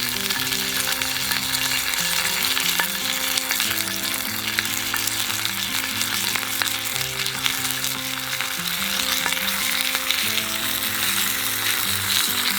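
Thick-cut bacon frying in a hot pan: a steady sizzle dotted with many small spits and pops.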